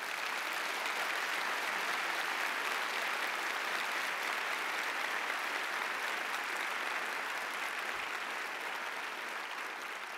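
Audience applauding: dense, steady clapping that slowly fades toward the end.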